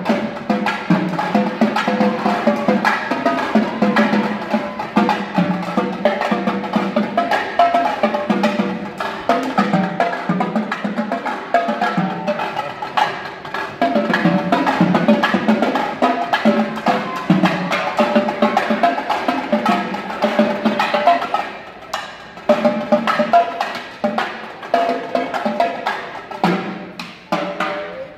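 A marching drumline playing a dense, fast percussion piece on snare drums, tenor drums and a line of pitched marching bass drums. It gets quieter for the last several seconds and stops at the end.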